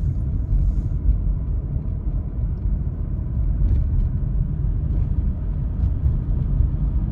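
Steady low rumble of a moving car heard from inside the cabin: engine and tyres running on wet pavement.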